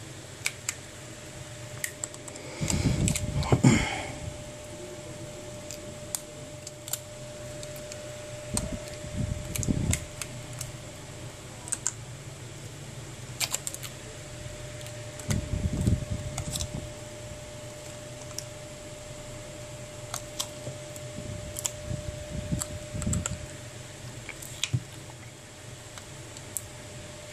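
Small scattered clicks and taps of a precision screwdriver and fingers on the metal shield plate of an iPhone 6 Plus display as its tiny side screws are driven in, with a few dull handling bumps. A steady background hum runs underneath.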